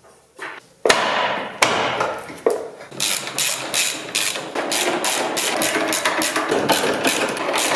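Impact wrench tightening the bolts of a new gearbox mount: three short bursts about a second apart, then a long continuous hammering run.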